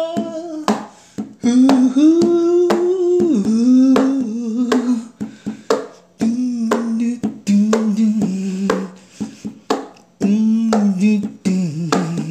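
A solo voice singing unaccompanied, holding and bending long notes of the melody. Sharp clicks fall between the phrases.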